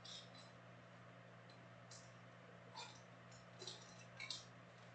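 Near silence with faint handling noises: a few soft clicks and rustles as trading cards and a rigid plastic card holder are handled, over a low steady hum.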